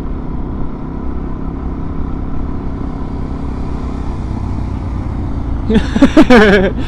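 Suzuki DR-Z400 single-cylinder four-stroke engine running steadily while riding. Near the end a brief, loud sound with a wavering pitch cuts over it.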